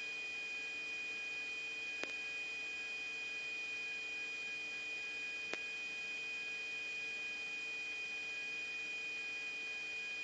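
Steady electronic hum with a high whine from the radio line between transmissions, and two faint clicks, one about two seconds in and one about five and a half seconds in.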